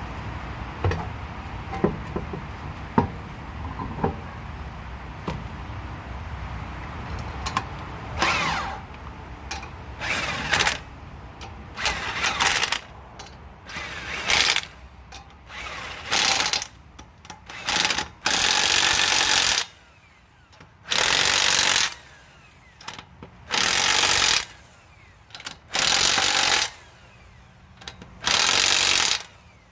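Impact wrench run in repeated short bursts of about a second each, spinning the wheel's lug nuts on snug, after a few clanks and knocks at the start.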